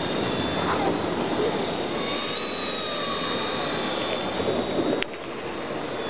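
Radio-controlled model helicopter flying overhead: a steady high-pitched motor and rotor whine whose pitch shifts a little as it manoeuvres.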